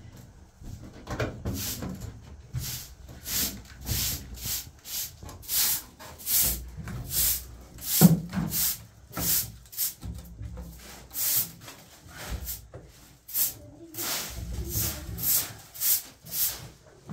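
Rhythmic scraping or brushing strokes, each a short hiss, about one and a half a second, with a single heavier knock about eight seconds in.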